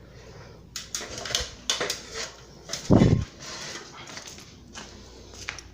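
Needle-nose pliers and galvanized steel wire clicking and scraping against a metal junction box in short irregular bursts, with one loud dull thump about three seconds in.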